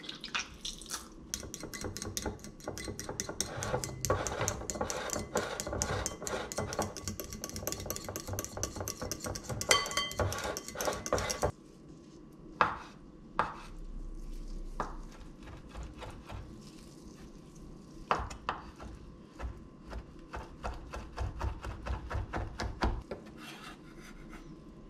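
A metal utensil beating a runny mixture in a ceramic bowl, with rapid scraping clinks, for about the first half; it stops suddenly. Then a kitchen knife cuts hard-boiled egg on a wooden chopping board, with a few separate knocks of the blade on the wood.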